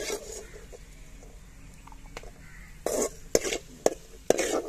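Perforated steel skimmer scraping and clinking against an aluminium kadai while cashews and raisins are scooped out of hot ghee, which sizzles faintly underneath. A run of sharp clinks comes about three seconds in and again near the end.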